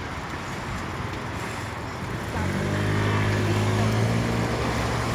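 City street traffic: a steady background wash of road noise, joined about two and a half seconds in by the louder, steady low hum of a motor vehicle's engine close by.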